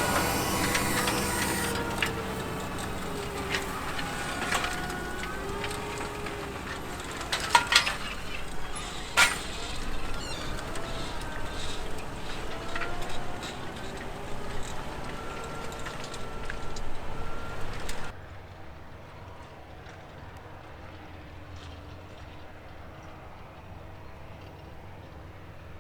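Fendt 936 tractor engines running under load while pulling 8-furrow Lemken ploughs, the engine note rising and falling, with a few sharp clanks about a third of the way in. About two-thirds through the sound cuts to a quieter, steadier engine hum.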